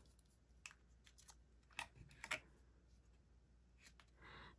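Near silence broken by a few faint, short rustles and light taps of paper handling: a small die-cut paper piece being mounted on a foam adhesive dimensional and pressed onto a card.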